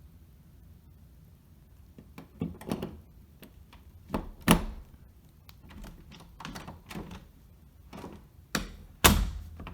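Schlage lever door handle being fitted back onto its stem and pushed into place: a scatter of clicks and knocks, the loudest about four and a half seconds in and near the end.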